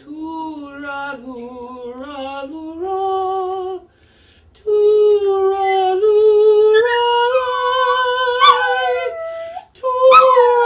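A woman singing long held notes with her long-haired chihuahua howling along on pitch. It goes quiet briefly a little before halfway, then comes back louder.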